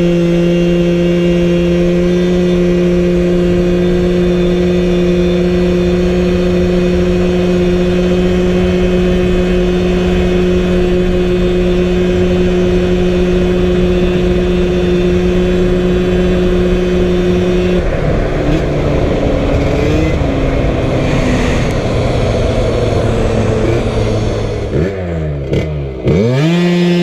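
TPR 86cc big-bore scooter engine at full throttle, holding a steady high-pitched drone near 11,000 rpm while the CVT, set up with 8-gram sliders, shifts up under load. About two-thirds of the way through, the throttle comes off and the pitch falls and wavers, then it dips and climbs sharply just before the steady drone returns.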